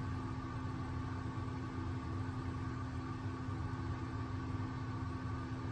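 A steady machine hum with a low rumble and a few constant tones, unchanging throughout.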